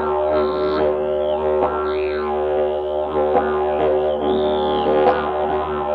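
Carbony carbon-fibre slide didgeridoo played with a steady drone, its tone reshaped in sweeps that rise and fall about once a second and broken by several short accented pulses, ringing in the echo of a road tunnel.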